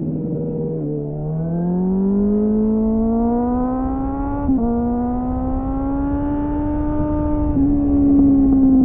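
2001 Suzuki GSF 600 Bandit's inline-four engine through a loud aftermarket SC-Project-style slip-on exhaust, accelerating on the road: the engine note holds steady, then climbs steadily from about a second in, with a brief dip in pitch about four and a half seconds in before it keeps rising and levels off near the end.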